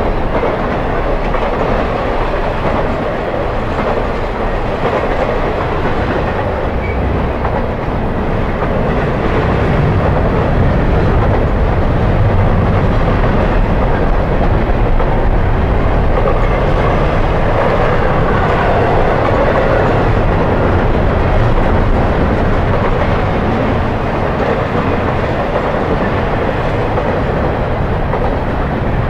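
Intermodal freight train's container and trailer cars rolling past close by at speed: a steady, loud rumble of steel wheels on the rails, a little louder through the middle.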